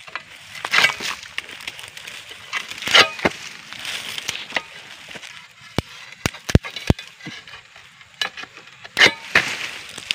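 An egrek, a sickle blade on a long metal pole, pulled in several strokes through the stalk of an oil palm frond, making scraping, cracking cuts with rustling of the fronds. The blade is freshly sharpened. About six seconds in comes a quick run of four or five sharp clicks.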